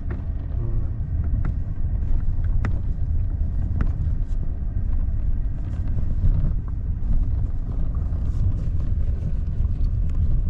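Engine-driven ore-crushing machine running with a steady low rumble, and sharp knocks about every second in the first few seconds.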